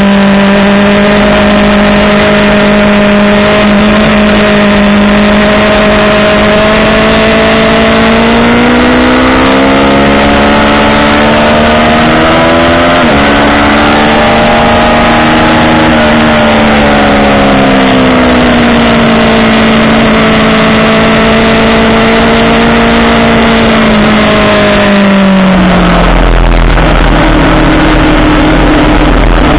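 Aprilia Tuono sport bike engine running hard on track, heard from the saddle over heavy wind rush. It holds a steady high note, climbs over several seconds, eases back and holds again, then drops sharply to a lower note near the end as the throttle is rolled off for a corner.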